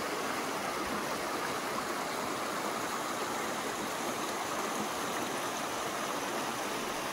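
Shallow rocky creek running over stones and a small cascade into a pool: a steady rush of water.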